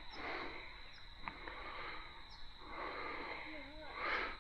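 Water swishing and lapping around the legs of someone wading slowly through a shallow creek, in soft swishes about a second apart.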